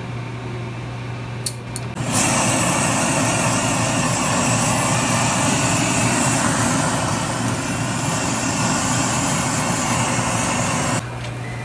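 Handheld butane blow torch searing cubes of wagyu beef on a grill: a loud, steady hiss of flame that starts suddenly about two seconds in and cuts off shortly before the end. Before it come a few light metal clicks of tongs.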